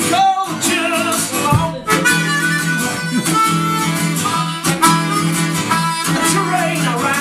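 Blues harmonica playing wavering melody lines over a strummed acoustic guitar, live.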